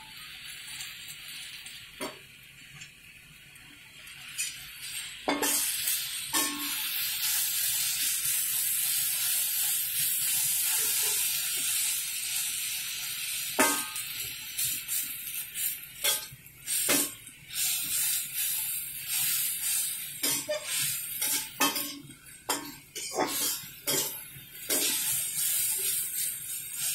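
Sawi putih sizzling in hot oil in a metal wok as it wilts, with a spatula scraping and knocking against the pan as the greens are tossed. The sizzle swells a few seconds in, and the knocks come more often in the last few seconds.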